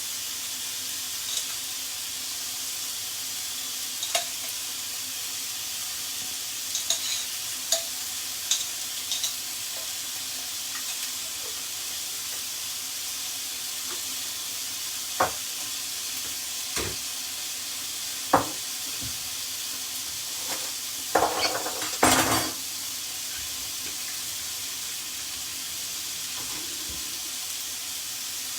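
Chicken breast frying in hot oil in a pan, a steady sizzle throughout. Scattered clinks and knocks of a utensil against the pan come through it, with the loudest run of knocks about three-quarters of the way in.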